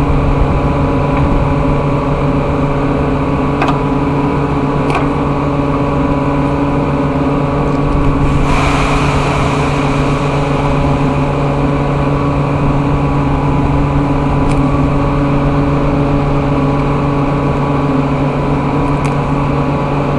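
Air compressor running steadily, its electric motor and compressor giving a constant-pitched hum. A brief hiss rises over it about eight seconds in.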